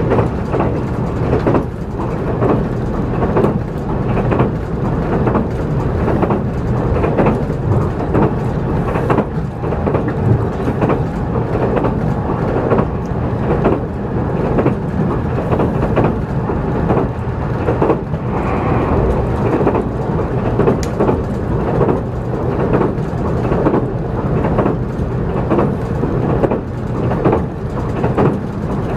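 Cabin running noise of a JR Kyushu 783 series electric train at speed: a steady low rumble with frequent irregular knocks.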